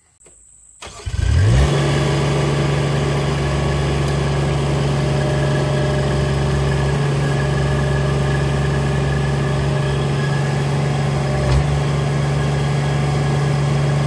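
Derette V1000 mini tracked skid steer's engine cranking and catching about a second in, then running at a steady speed.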